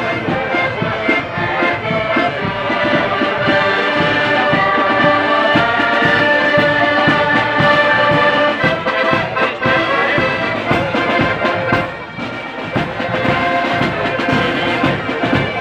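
Marching accordion band playing a tune together on piano accordions, with a steady bass drum beat and cymbal crashes. The music drops briefly quieter about twelve seconds in.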